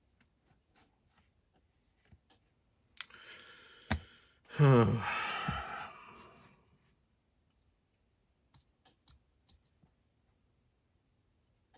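Scattered light clicks and taps from small parts being handled. About four and a half seconds in comes a loud, breathy sigh whose voice falls in pitch, preceded by two sharp clicks.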